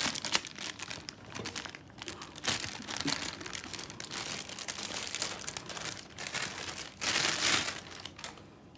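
Clear plastic bag crinkling in irregular bursts as hands open it and work a coiled power cable out of it. The loudest crinkling comes about seven seconds in, then it dies away.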